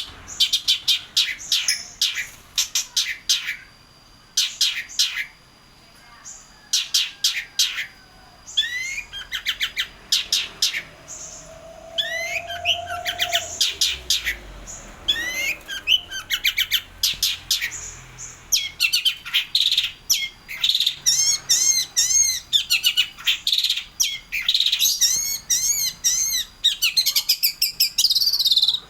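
Long-tailed shrike singing: rapid runs of sharp, high-pitched chirps and trills separated by short pauses, turning into a fast, busy run of repeated looping notes in the last third.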